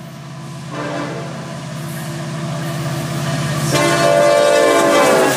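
Florida East Coast Railway freight locomotive approaching and sounding its horn: a short blast about a second in, then a loud long blast near the end, over the locomotive's steady low rumble, growing louder as the train nears.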